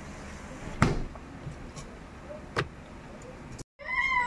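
Two sharp knocks about two seconds apart, from kitchen work at a wooden chopping board. Near the end, after a brief break in the sound, a cat meows in one drawn-out call.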